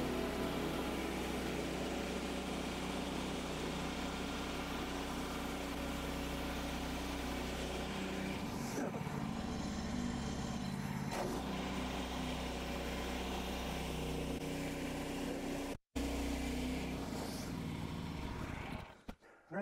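Small gasoline engine of a Woodland Mills HM130 portable bandsaw mill running steadily, with a couple of light knocks about nine and eleven seconds in.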